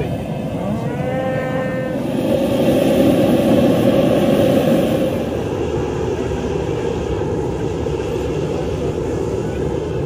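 Cattle mooing: a short call about a second in, then a longer, louder moo from about two to five seconds in, over steady background noise.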